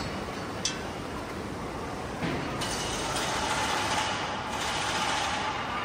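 Truck assembly-line machinery running, with a sharp click just over half a second in and a metallic clank a little past two seconds. A faint steady whine joins about three seconds in.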